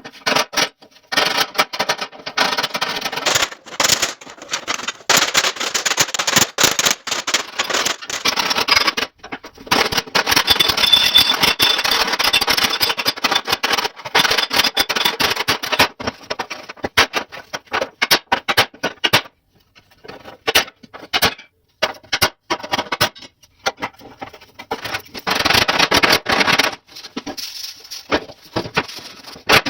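Irregular scraping and rubbing in stretches of a few seconds, mixed with many small clicks and taps, typical of hand work on a part.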